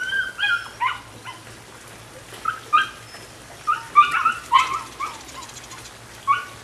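Nine-week-old Belgian Malinois puppy whining and yipping in short high-pitched cries, about a dozen in small groups of two or three.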